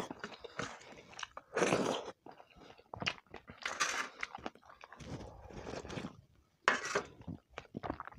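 A person chewing mouthfuls of roti with shrimp curry close to the microphone, in irregular bursts with short pauses between them.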